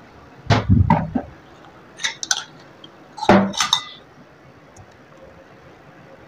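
Kitchen clatter as a mixer-grinder jar is lifted off its base and emptied into a bowl, with a spoon clinking against jar and bowl. It comes as three short spells of knocks and clinks within the first four seconds.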